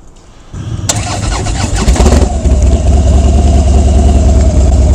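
Harley-Davidson Dyna Street Bob's V-twin engine, breathing through a FAB28 aftermarket exhaust, started about half a second in: it catches, revs briefly, then settles into a loud, steady idle.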